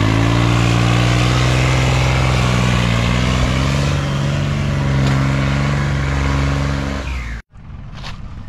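Diesel tractor engines running hard under heavy load, hauling a loaded trailer out of soft soil, so heavy that the front wheels of the New Holland lift off the ground. The engine note holds steady with slight dips in pitch, then cuts off abruptly about seven seconds in.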